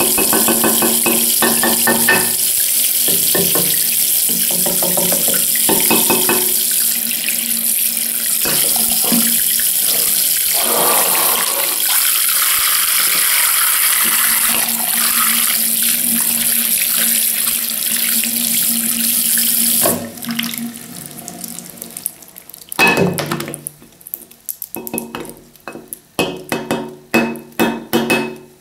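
Tap water running steadily onto a hand and a bar of Dove cream soap in a sink; the water shuts off suddenly about twenty seconds in. Then come short rubbing strokes of the wet soap bar against the ceramic sink.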